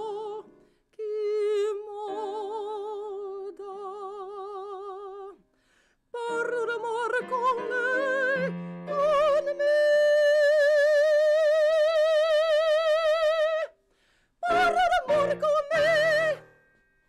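A woman singing in operatic style with wide vibrato, accompanied by a keyboard. The phrase climbs to a long held high note, then closes on a few short notes.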